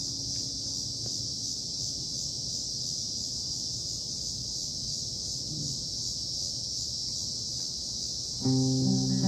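Acoustic guitar: a chord fades out at the start, leaving a steady high insect drone for several seconds, then a loud strummed chord rings out about a second before the end.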